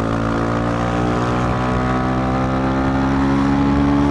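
Dafra Next 250 motorcycle's single-cylinder engine pulling under load, its pitch rising slowly and steadily as the bike accelerates, with rushing wind noise underneath.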